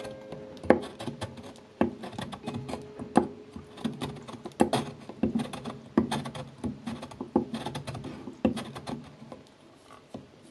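A hard block of Parmigiano grated by hand. Gritty scraping strokes land about every second and a half, with smaller crumbly scratches between them, and stop near the end.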